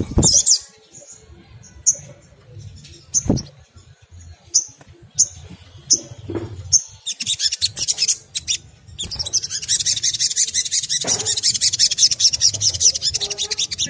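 Sunbird calling: short high chirps at intervals, breaking about halfway into a fast, continuous chattering twitter. Two low thumps, one at the start and one about three seconds in.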